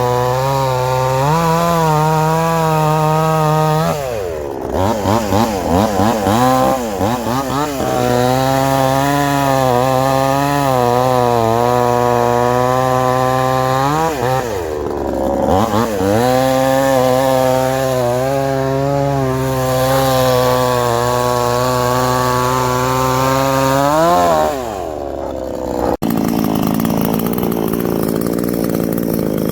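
A Supmix 60 cc two-stroke gas chainsaw running at high revs. Its pitch sags and climbs back about four seconds in and again around fifteen seconds, then drops off near the end. After an abrupt cut, a rougher, steady chainsaw sound carries on.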